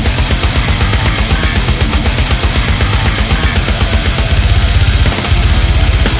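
Death metal recording: distorted electric guitars over fast, dense drumming, loud throughout. About four seconds in the low drumming thickens into a near-continuous kick-drum pattern, with a brief break just after five seconds.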